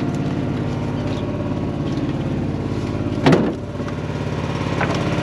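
Boat engine idling steadily, with a brief loud knock a little over three seconds in.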